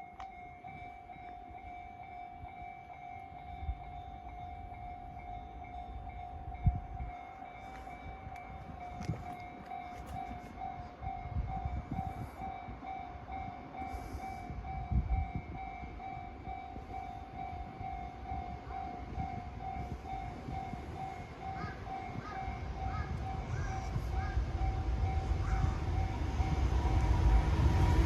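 Japanese railway level-crossing warning bell ringing over and over, with an approaching train's rumble growing louder near the end.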